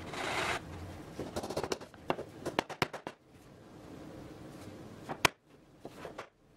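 Sapele door rail and stile joint being pushed together: a short scraping rush of wood sliding, then a run of small sharp wooden clicks and knocks, and one sharper knock a little over five seconds in.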